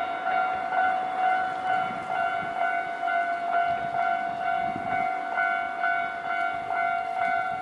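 Japanese railway level-crossing warning bell ringing, a steady electronic clanging of about two strikes a second.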